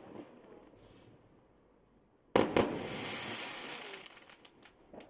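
Aerial fireworks going off: two sharp bangs about two and a half seconds in, followed by a hiss that fades over about a second and a half, then a few scattered pops near the end.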